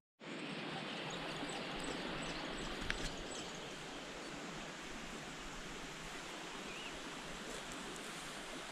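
Steady outdoor background hiss with no distinct source, and a faint tick about three seconds in.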